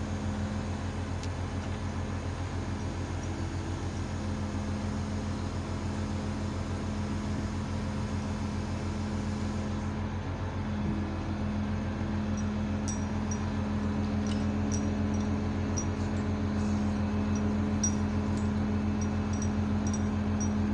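A crane's engine running steadily, a low even drone. Faint regular ticks come in about halfway through.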